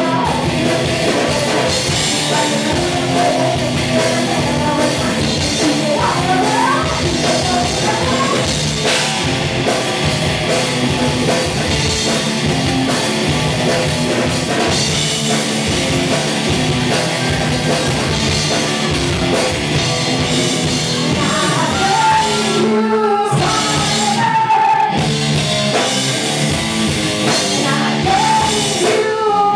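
Live hard rock band playing loud, with drum kit, electric guitar and a woman singing. The band cuts out for two short breaks about 23 and 25 seconds in before crashing back in.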